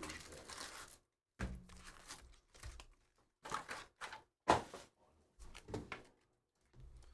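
Handling noise of foil trading-card packs and a cardboard box being set down on a table: a handful of short thuds and rustles with pauses between them, the loudest knock about four and a half seconds in.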